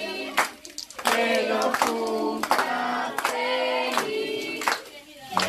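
A group of voices singing together, with hands clapping along.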